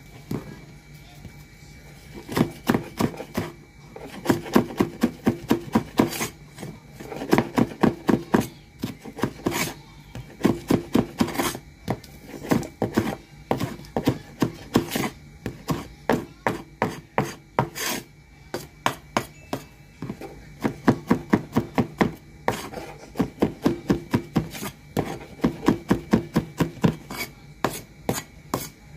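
Meat cleaver chopping scallion and other seasoning on a wooden cutting board. The chopping comes in quick runs of about five strokes a second, with short pauses between runs.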